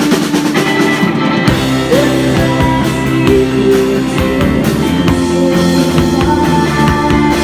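Live rock band playing loudly, an electric guitar and a drum kit together.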